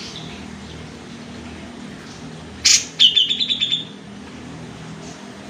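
Sooty-headed bulbul calling: one sharp note a little over two and a half seconds in, then a quick run of high chirps lasting under a second. A low steady hum runs underneath.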